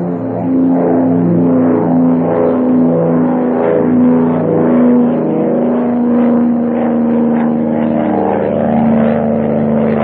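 Piston bomber engines droning steadily as a sound effect, several engine tones wavering against one another.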